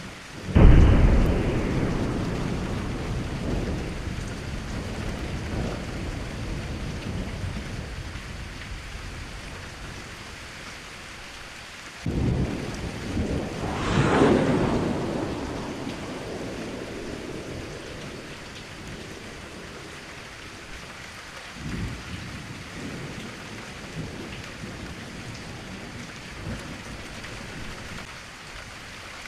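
Heavy rain falling steadily, with thunder: a loud clap about half a second in that rumbles away over several seconds, another rumble starting about twelve seconds in that swells a couple of seconds later, and a weaker one about two-thirds of the way through.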